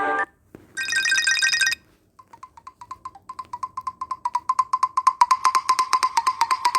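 Samsung Galaxy S10 ringtones: one tone cuts off at the start, and a short, bright one-second tone follows. Then a new ringtone begins as rapid wood-block-like ticks, about eight a second on one steady pitch, growing louder.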